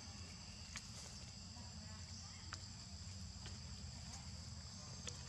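Steady high-pitched insect chorus from the forest over a low background rumble, with a few short sharp crackles of dry leaves as a baby macaque moves about on the leaf litter.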